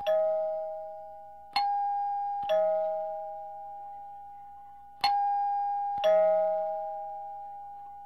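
A two-note ding-dong chime: a higher note struck and then a lower one, each ringing out and fading slowly. It sounds twice more, about three and a half seconds apart.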